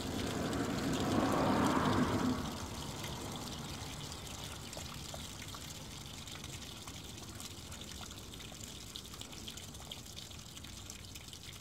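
Water draining out of an RV water heater tank, running strongly for the first two seconds or so, then easing to a steady, slowly fading trickle as the tank empties.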